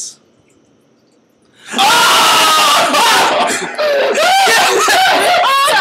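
After a brief hush, several young men burst into loud shrieks and screams mixed with laughter, a shocked, disgusted reaction to something they have just seen.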